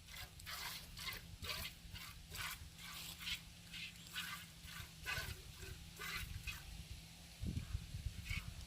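Milk squirting into a pail in quick, regular hissing jets, about two a second, as an animal is milked by hand. Near the end comes a low thud.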